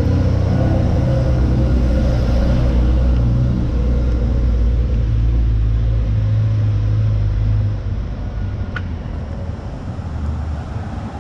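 Low, steady rumble that drops in level about eight seconds in, with a faint tick shortly after.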